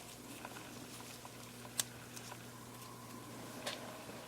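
Faint light clicks and ticks of small plastic lens sleeves being handled and slid together on a Panasonic Lumix ZS19 lens unit, with one sharper click a little before the middle, over a faint steady hum.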